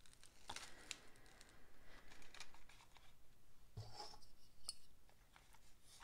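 Faint handling sounds of small craft items on a cutting mat: light rustles and scattered clicks as a Velcro dot is stuck on and a small container is pressed into place on a foam board.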